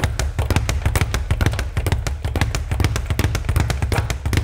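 Leather speed bag being punched in a fast, even rattle of rapid strikes, the bag slapping against the rebound platform many times a second.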